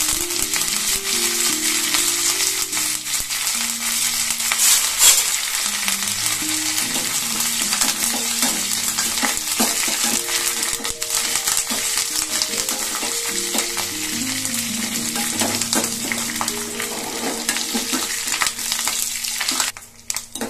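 Curry leaves, mustard seeds and dal sizzling and crackling in hot coconut oil in a small pan as a tempering, stirred with a steel ladle. Soft background music plays underneath, and the sizzle dips briefly near the end.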